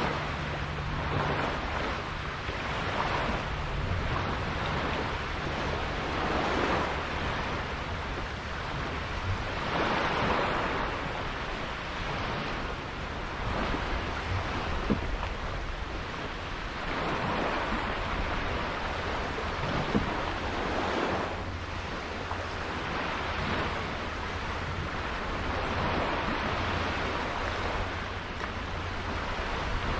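Sea water washing and splashing against a sailboat's hull while under way, surging every few seconds, with wind buffeting the microphone.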